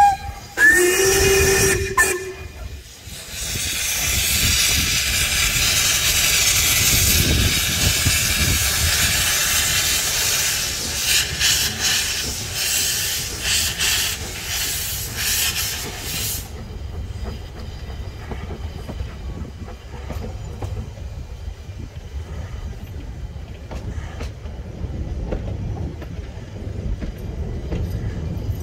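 Narrow-gauge steam locomotive departing: two short whistle blasts, the first high and the second lower, then a loud steady hiss of steam from the cylinder drain cocks that cuts off suddenly about halfway through. After that the carriages roll past with a low rumble and scattered wheel clicks.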